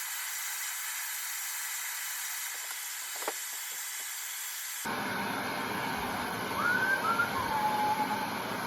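Steady hissing as the axe is branded with a hot branding iron. The sound changes abruptly about five seconds in, and a few faint gliding, whistle-like tones come in near the end.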